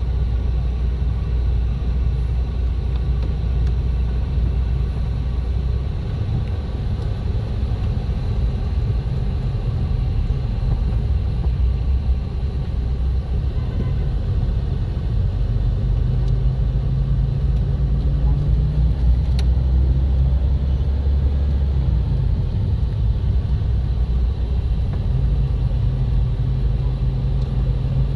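Steady low rumble of a car driving, road and engine noise with a low hum that shifts in pitch a few times.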